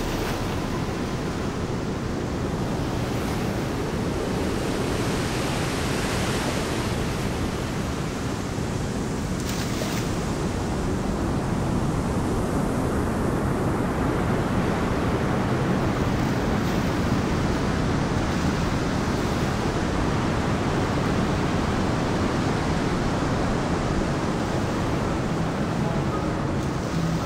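A steady rushing noise that swells a little now and then; music comes in near the end.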